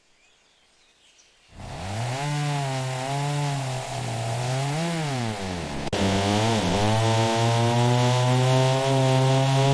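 Chainsaw starting in after about a second and a half of silence, its engine pitch sagging and rising several times as it works, then held steady at a high pitch for the last few seconds.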